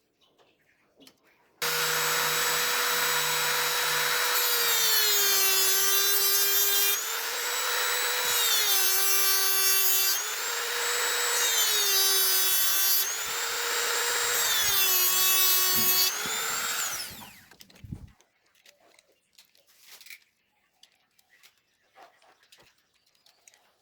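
Small handheld electric power tool, a mini drill or rotary tool, switched on abruptly. It runs at a high steady whine whose pitch drops each time it bites into the material and recovers as it eases off, about five times. Then it is switched off and spins down.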